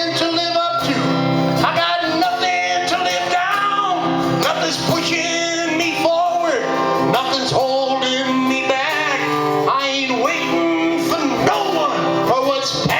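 Live music: guitar playing with a man singing.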